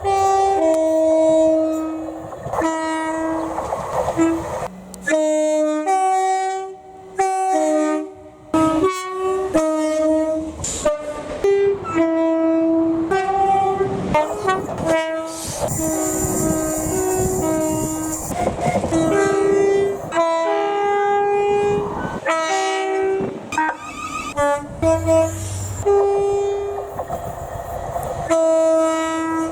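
Train air horns sounded again and again, a long run of short and held notes that switch between several pitches. About halfway through there is a few seconds of hiss, likely a train running past.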